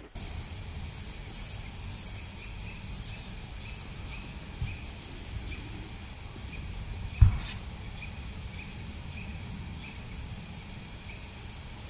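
Wind rumbling steadily on the microphone over an open frozen lake, with one louder low bump about seven seconds in. A faint high ticking repeats about twice a second underneath.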